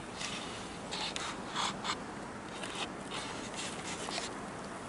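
Short scratchy rustles of a jacket's fabric brushing against the camera as it is handled and turned, six or so in a row.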